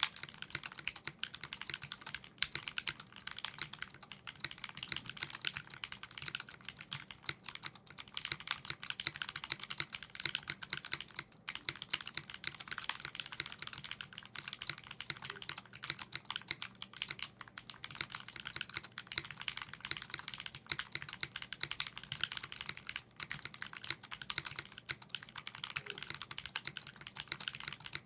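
Steady, fast typing on a 60% mechanical keyboard with lubed vintage Cherry MX Black linear switches (65 g springs), an aluminum case and original Desko keycaps: a dense run of key clacks with a brief pause about 11 seconds in.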